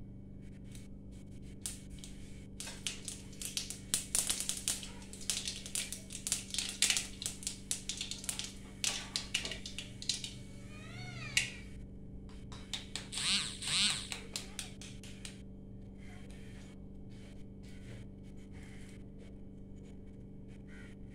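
Hot oil crackling and spitting in an aluminium kadai, a dense run of quick irregular clicks through the first half. About halfway through, a cat meows once in a short rising-and-falling call.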